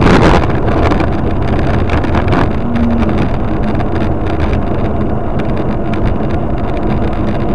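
Steady rumble of a moving car's road, wind and engine noise picked up by a dashcam microphone, buffeted by wind.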